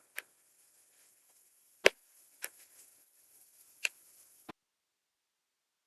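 Five scattered sharp clicks or taps, the loudest about two seconds in, then dead silence from about four and a half seconds on.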